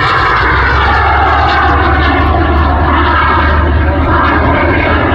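Small jet engine on a jet-powered aerobatic glider, running steadily as the glider flies its display: a loud whine made of several tones that slide slowly down in pitch, over a low rumble.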